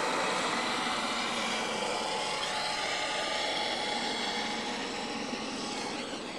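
U.S. Coast Guard MH-65 Dolphin helicopter in flight: a steady turbine whine over a rush of rotor and engine noise, easing slightly near the end.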